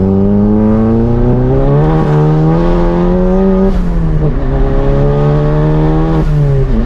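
Tuned MK7 Volkswagen GTI's turbocharged 2.0-litre four-cylinder pulling hard under full acceleration, heard inside the cabin: the engine note climbs in pitch, drops at upshifts about two, four and six and a half seconds in, and climbs again after each.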